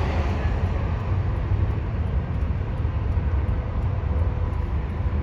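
Steady low rumble of engine and road noise heard inside a car cabin.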